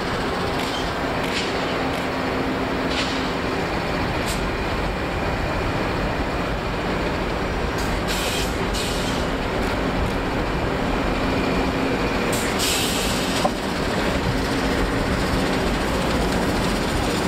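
Two NR class diesel-electric locomotives hauling a long passenger train past at low speed, their engines running with a steady drone that grows slowly louder as they come near. Several short, sharp clicks and hisses come from the wheels and carriages.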